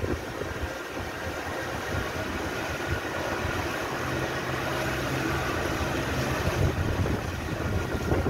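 Small open motorboat under way: its engine hums steadily while water rushes along the hull and wind blows past.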